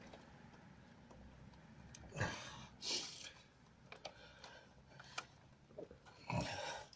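Hands and fingers working at a rubber hose connection in a car's engine bay: scattered small clicks and knocks of plastic and metal, with a few louder scrapes about two and three seconds in and near the end.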